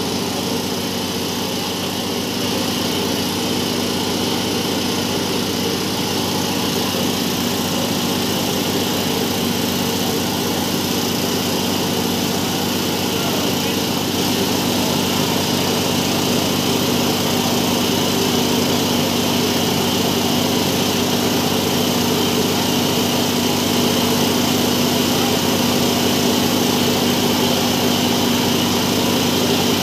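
Preheating burner of a thermite rail-welding kit burning steadily with a hiss at the rail joint, over the steady drone of a small engine. It grows slightly louder toward the end.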